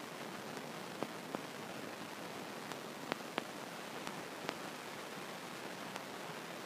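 Burning car heard across a field: a steady hiss with several sharp pops at irregular intervals.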